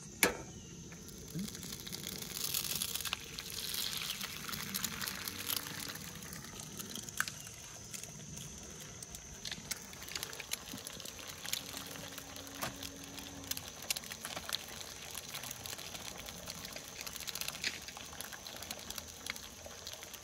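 Eggs frying in a skillet on a Coleman propane camp stove: a steady crackling sizzle, louder for a few seconds near the start as the eggs hit the hot pan.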